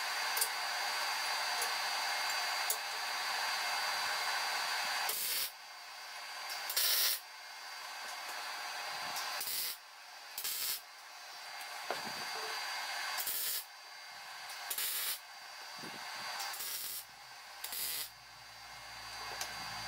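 MIG welder arc sizzling on steel: one continuous weld of about five seconds, then a string of shorter welds of a second or two each with brief pauses between them.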